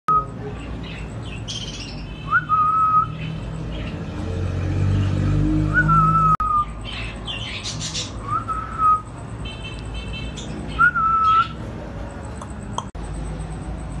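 An African grey parrot whistling one short note four times, each a quick upward swoop into a briefly held tone, with softer scratchy sounds between the whistles.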